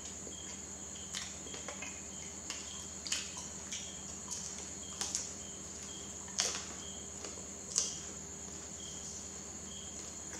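Soft wet mouth clicks and smacks of someone chewing banana, about a dozen, the loudest about six and a half and nearly eight seconds in. Behind them a cricket chirps steadily over a constant high-pitched drone.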